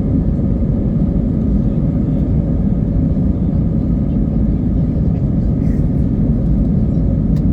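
Steady low rumble of an airliner's cabin noise, with no changes in pitch or level.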